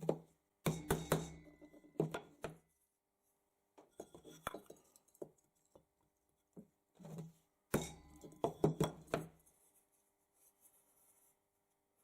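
A hammer tapping dents out of a thin brass hemisphere: irregular clusters of sharp metallic strikes with brief ringing, busiest about a second in and again around eight to nine seconds in.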